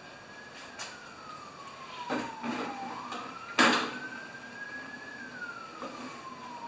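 An emergency-vehicle siren wailing, its single tone slowly rising, holding, then falling and rising again. Over it come several knocks and clatters as a push lawn mower is handled and tipped onto its side on a lift table, the loudest knock about three and a half seconds in.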